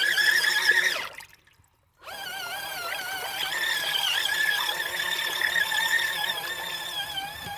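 Small portable washing machine running its wash cycle: a motor whine that wavers up and down in pitch as it churns the water. The sound drops out for about a second shortly after the start, then carries on.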